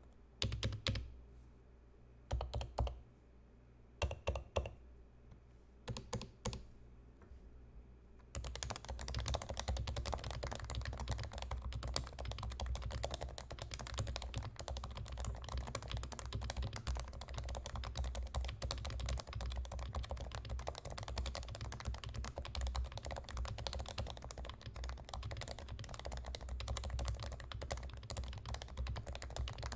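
Typing on a Leopold FC980C keyboard with Topre rubber-dome switches: a few short groups of keystrokes, then steady fast typing from about eight seconds in.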